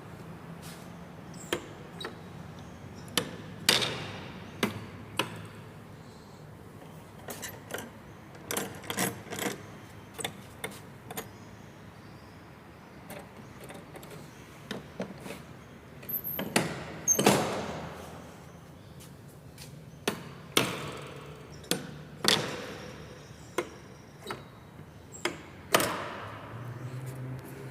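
A series of irregular knocks and clunks, some followed by a short ringing decay, over a low steady hum.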